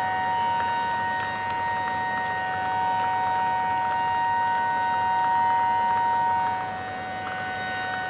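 Fire engine sirens held on steady, unwavering tones of several pitches, with a crowd of hands clapping underneath. The higher tone cuts out near the end and the sound gets quieter.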